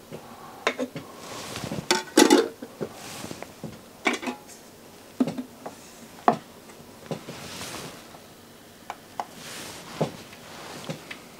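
Handling clicks and knocks from a top-loading CD transport: the disc clamp set down onto the disc and the heavy sliding lid drawn shut, with a few soft sliding sounds between the clicks.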